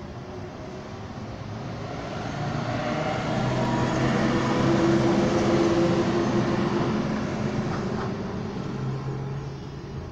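Background sound of a motor vehicle passing by: a low engine hum grows louder over about five seconds, then fades away.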